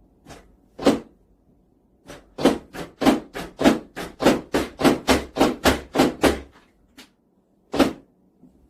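A rapid run of about fifteen thumps at roughly three and a half a second, with two single thumps before it and one more near the end.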